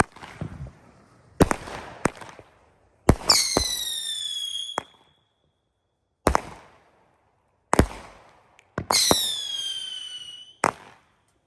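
Consumer 200-gram 15-shot fireworks cake firing shot by shot with sharp, separate bangs a second or more apart. Twice a shot carries a whistle that falls in pitch for about a second and a half before cutting off.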